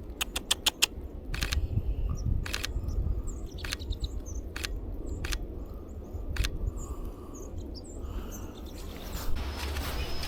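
Sony a7R V camera shutter firing: a quick burst of five shots just after the start, then single shots about once a second. Faint bird chirps sound in the background.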